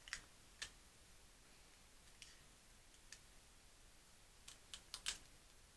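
Sticky tape being handled between the fingers, giving a handful of short, sharp clicks and crackles in a near-silent room, four of them in a quick run near the end.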